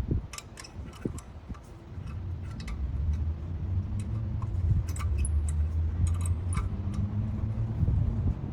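Light metallic clicks and taps of brake pad clips and pads being handled and fitted into the caliper bracket, with a low steady rumble coming up about two seconds in.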